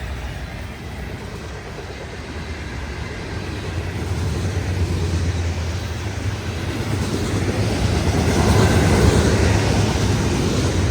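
Freight train approaching led by GE ES44C4 diesel locomotives: a low engine rumble with rail noise, growing louder and loudest about eight to nine seconds in.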